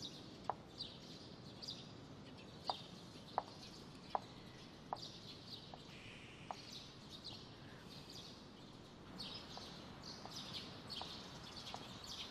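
Faint background ambience of birds chirping, with scattered short, sharp calls at irregular intervals over a soft, steady hiss.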